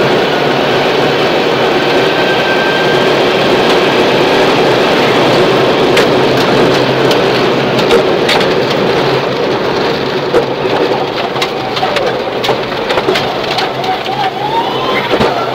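Subaru Impreza rally car heard from inside the cabin, driving flat out on a loose gravel stage: steady engine and road noise, with loose stones clicking and rattling against the underbody. The engine pitch climbs near the end.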